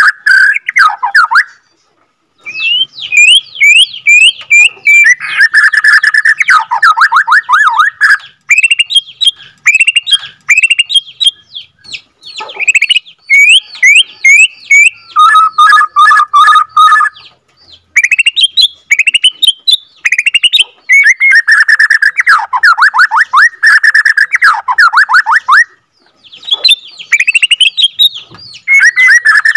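Caged Bornean white-rumped shama singing a long, fast song of rolling trills and quick upswept whistles, with brief pauses about two seconds in and again near the end.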